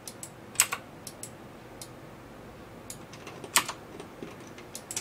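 Computer keyboard and mouse clicks: a dozen or so short, irregular clicks, the loudest about three and a half seconds in.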